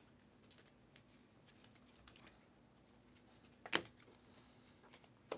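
Faint rustling of trading cards being slid across one another in the hands, with one sharp click of a card a little before four seconds in.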